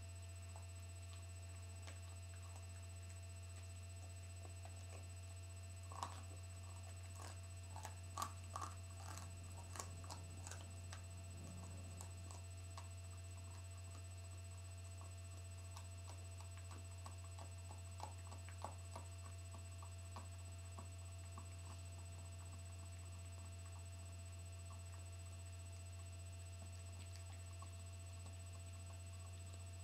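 A dog gnawing a veal breast bone: scattered faint crunching clicks, most of them in a cluster several seconds in and a few more later, over a steady low electrical hum.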